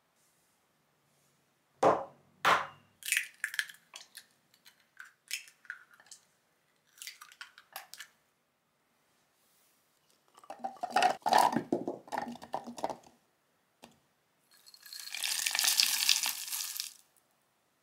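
Food-prep sounds into a plastic mini-chopper bowl: two sharp taps of eggs being cracked, then small clicks and drips. Carrot chunks clatter into the bowl, and near the end sliced almonds pour in with a brief rustling hiss.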